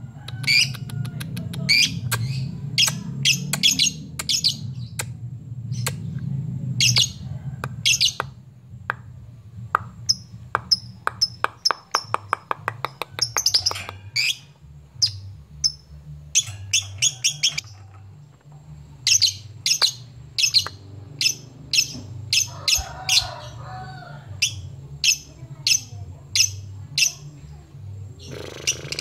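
Lovebird calling in loud, sharp, high chirps repeated in quick runs, with a fast rattling trill about halfway through: a challenge call that draws rival lovebirds to answer.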